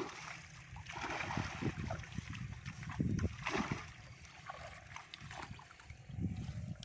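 Water sloshing and splashing in irregular bursts as a seine net is hauled by hand through waist-deep pond water, with fish thrashing inside the net.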